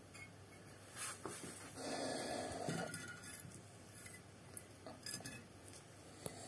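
Faint clinks and a scrape of fired clay bricks being handled, with the scrape lasting about a second, starting about two seconds in.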